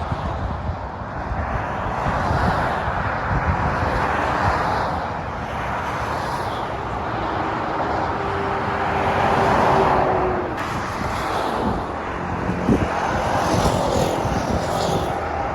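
Motorway traffic with lorries going by: a continuous roar of tyres and diesel engines that swells and eases as vehicles pass, loudest about two-thirds of the way through.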